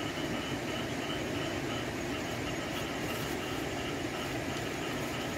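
Steady night ambience: an unbroken low rumble with crickets trilling continuously on one high note.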